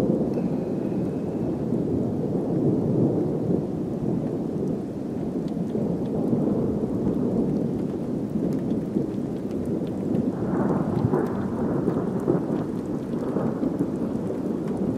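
Thunder from a thunderstorm rumbling continuously, swelling into heavier rolls about ten seconds in, with rain falling.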